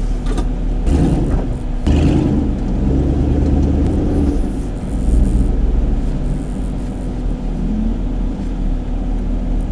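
Off-road vehicle engine running at low speed over a rough dirt trail, a steady low rumble with knocks and rattles from the jolts about one and two seconds in.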